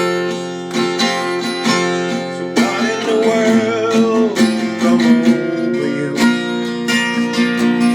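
A song on strummed acoustic guitar, chords ringing in a steady rhythm; about three seconds in, a wavering held note rises over the chords for a second or so.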